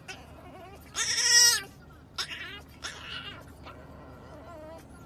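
French bulldog puppy whining in high, wavering cries: one long loud cry about a second in, then several shorter, quieter ones.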